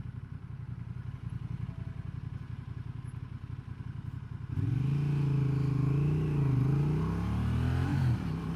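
Honda Transalp XL750's parallel-twin engine heard from the saddle while riding: a steady low rumble, then about halfway through the engine note jumps louder and climbs and falls in pitch as the bike is accelerated, easing back near the end.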